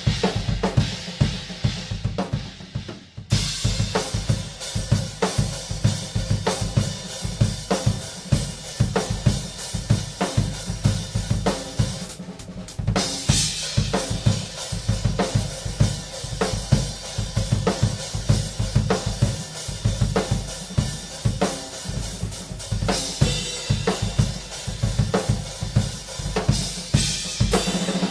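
Tama Starclassic Bubinga Elite drum kit played as a busy groove, with bass drum, snare, hi-hat and cymbals. The drumming breaks off briefly about three seconds in, and the cymbals drop out for a moment around twelve seconds.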